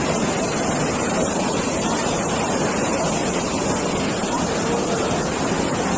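Floodwater from an overflowing creek rushing past in a steady, loud roar, strong enough to be sweeping away cars.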